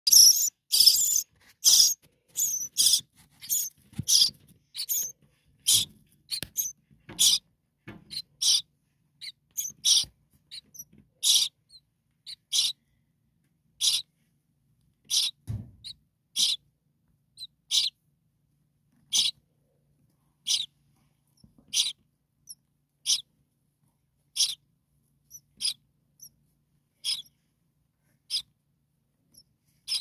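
Nestlings begging: a rapid, overlapping run of short, high-pitched peeps that slows after a few seconds to single chirps about once a second, growing fainter as the young settle back into the nest.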